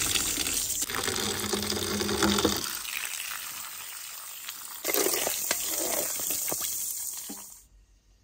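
Water running and splashing: it eases off partway through, comes back suddenly, then cuts off abruptly near the end.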